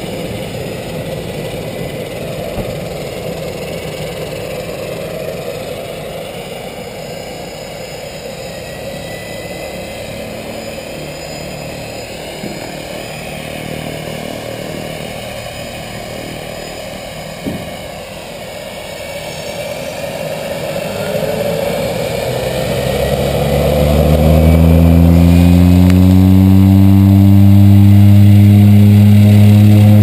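Turbo Otter floatplane's turboprop engine running at low power, then spooling up about two-thirds of the way through to full takeoff power: the propeller drone swells over several seconds and then holds loud and steady as the takeoff run starts.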